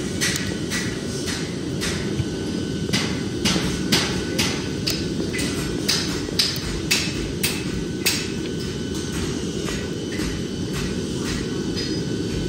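Sharp metal-on-metal strikes with a faint ring, about two a second, thinning out after about eight seconds, over a steady low shop rumble.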